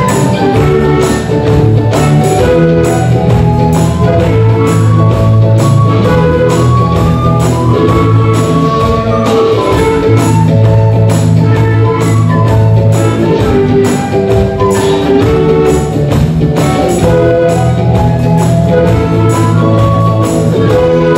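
Recorder orchestra, recorders from high to deep bass sizes, playing a lively pop tune in many sustained parts over a steady percussion beat.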